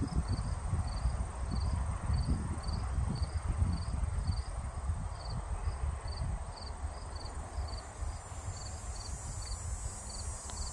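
A cricket chirping steadily, short high chirps about twice a second, over wind rumbling on the microphone.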